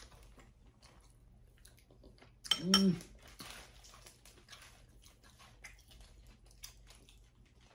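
Faint scattered clicks and crackles of hands peeling boiled shrimp shells, with one short hum-like vocal sound about two and a half seconds in.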